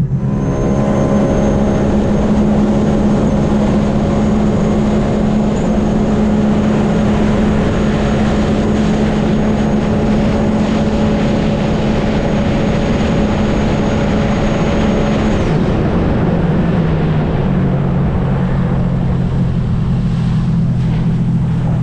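Sea-Doo RXT-X personal watercraft's supercharged Rotax three-cylinder engine held at full throttle at a steady high pitch on a top-speed run near 78 mph, over a rushing noise. About fifteen seconds in, the pitch drops in two steps as the throttle comes off.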